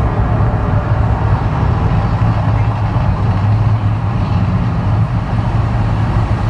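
Deep, steady rumble from the Mirage volcano show, its low roar carried on loudspeakers over the water.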